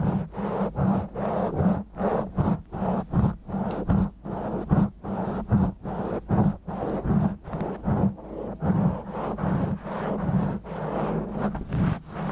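Fingers scratching and rubbing directly on an uncovered microphone in slow, rough strokes, about two a second, each a loud, close, boomy scrape.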